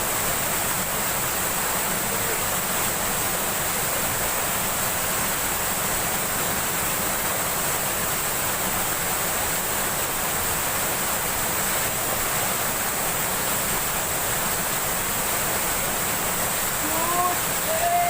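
Rushing stream water, a steady even roar of flowing water over rocks.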